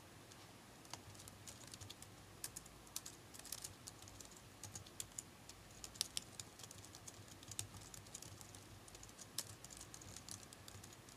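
Faint typing on a computer keyboard: irregular runs of keystrokes, entering text into form fields.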